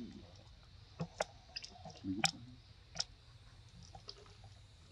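A handful of sharp clicks and crackles from a thin plastic water bottle as a macaque grips and mouths it while drinking, with a brief low voice a little after two seconds in.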